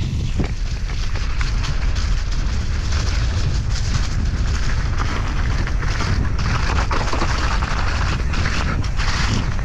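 Downhill mountain bike ridden fast over rough ground: constant wind rush on the microphone mixed with a continuous clatter of knocks and rattles from the bike and tyres.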